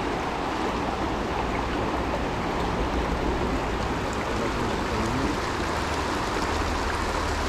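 Shallow, rocky mountain river running over stones: a steady rush of water close by.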